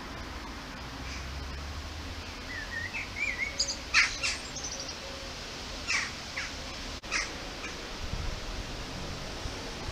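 Small birds chirping: a short wavering call, then a few brief, sharp chirps in clusters, over a steady low rumble.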